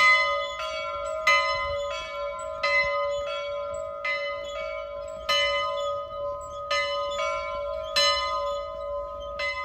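Church bells ringing, about three strikes every two seconds, each note ringing on into the next.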